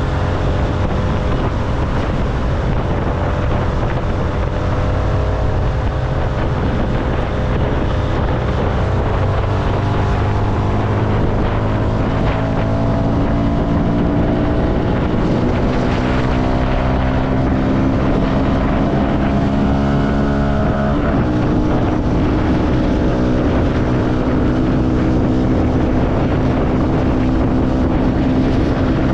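CFMoto motorcycle engine under way, its pitch climbing slowly for about fifteen seconds as the bike accelerates in one gear, then dropping suddenly at an upshift about two-thirds of the way through and running steady after. Wind rushes over the microphone throughout.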